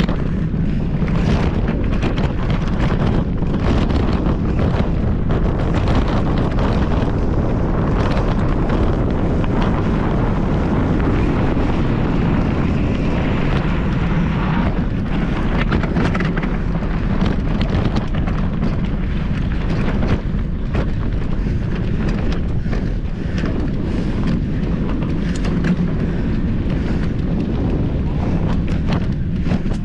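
Mountain bike ridden over rough trail: steady wind buffeting on the microphone with tyre rumble and frequent rattles and clatters from the bike.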